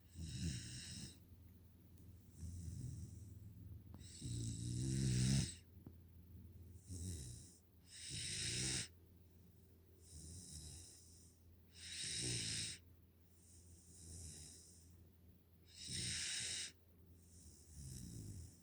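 A five-month-old Pungsan dog puppy snoring in its sleep. Its hissing snore breaths come in a slow, regular rhythm, each about a second long and one every one to two seconds, with the loudest about four to five seconds in.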